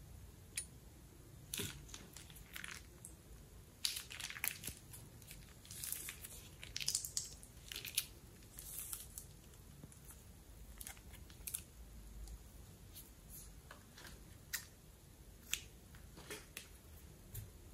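Plastic piping bag crinkling and crackling as a hand squeezes and handles it, with scattered small sticky clicks; the crinkling is busiest in the first half, then thins to occasional single clicks.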